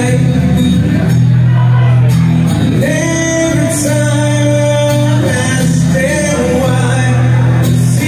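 A man singing with his own strummed acoustic guitar in a live solo performance.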